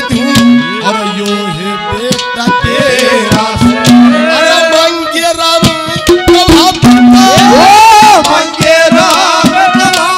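Live Haryanvi ragni folk music: a male singer's voice over harmonium and hand-drum accompaniment, with drum strokes throughout.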